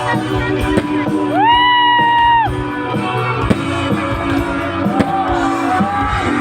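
Loud live concert music with a steady beat. About a second in, a voice slides up into a high note and holds it for about a second.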